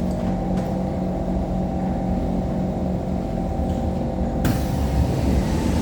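SMRT metro train arriving at an elevated platform: steady rumble of wheels on rail and a humming traction-motor tone. About four and a half seconds in, a loud hiss sets in suddenly and continues.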